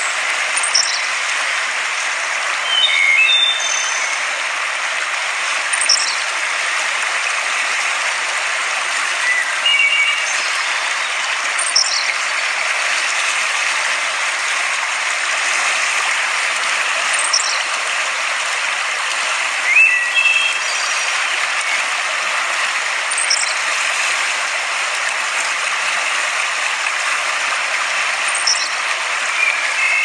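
River water rushing over rocks in a steady hiss, with a few short bird chirps now and then.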